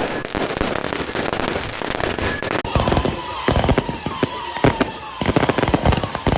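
Firecrackers going off: a dense crackle at first, then from about three seconds in a rapid run of separate sharp bangs.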